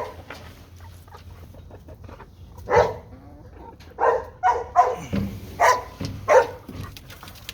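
Short animal calls, about six of them in quick succession from about three seconds in, over a low steady background.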